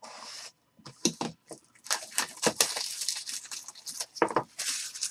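A box cutter slits the plastic shrink wrap on a sealed box of trading cards, a brief hiss at the start. The wrap is then torn off and crumpled, a dense run of sharp crinkling crackles.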